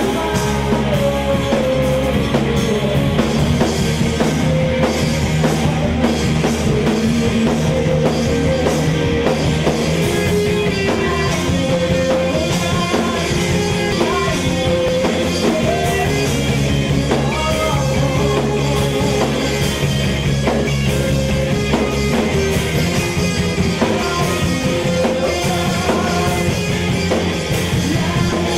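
Live rock band playing: a man singing into a microphone over electric guitar and a drum kit, loud and continuous.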